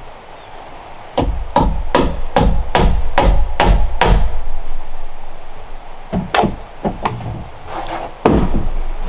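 Claw hammer driving a nail into a pine framing board: a run of about eight steady blows, roughly two and a half a second, then two more single blows a couple of seconds later and a heavier knock near the end.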